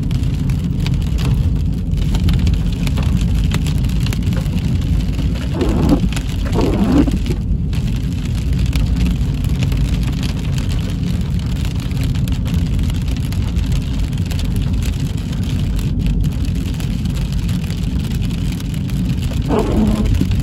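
Steady road noise of a car driving in rain, heard from inside the car, with rain hitting the vehicle. Brief sweeping sounds come twice about six seconds in and once more near the end.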